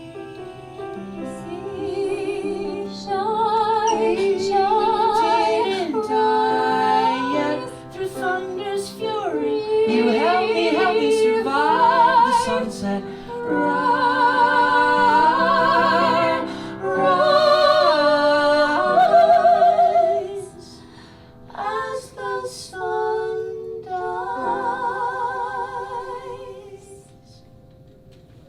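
A woman singing long held notes with a marked vibrato over instrumental accompaniment, in a musical-theatre song; the singing breaks off briefly twice late on and fades out near the end.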